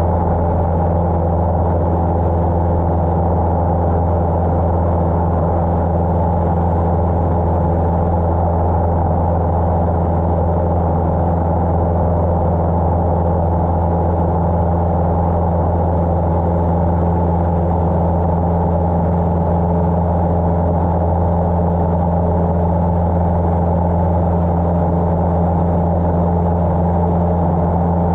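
Cessna 150's four-cylinder Continental O-200 engine and propeller droning steadily at constant power in flight, with no change in pitch or level.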